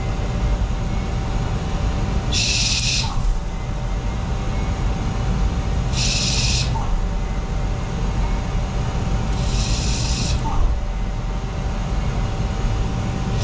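CNC lathe cutting a groove in the part: a steady machine hum with a faint steady whine. A short hiss comes in about every three and a half seconds, each ending in a small tick.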